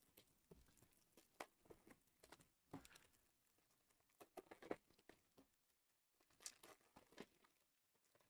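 Near silence with a few faint, scattered crinkles of foil trading-card pack wrappers being handled and torn open.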